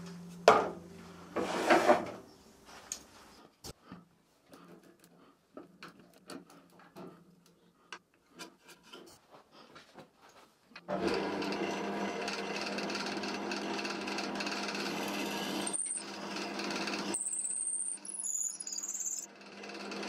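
Wood lathe turning an oak piece. At the start there is a sharp wooden knock, then scattered light taps and clicks. About eleven seconds in, the lathe runs with a steady hum and a rasping hiss over it, with brief high squeals near the end.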